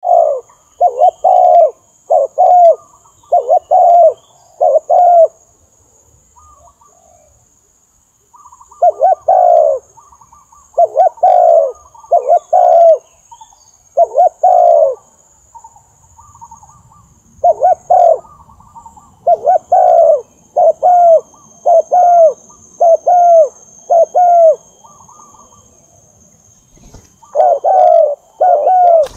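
Spotted dove cooing in phrases of short coos, each note falling slightly in pitch, with pauses of a few seconds between phrases. This is a dove's song call of the kind played to lure wild doves.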